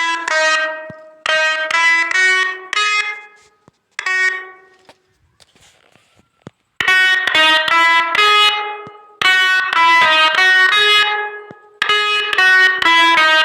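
Telolet bus horn: a set of electrically switched multi-tone air horns playing short stepped melodies. The notes come in several quick phrases, with a pause of about two seconds near the middle.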